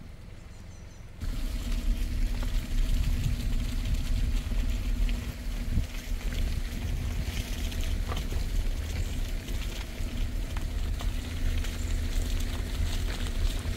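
Strong wind buffeting the microphone, a heavy low rumble under a rushing hiss of wind through the trees, starting suddenly about a second in.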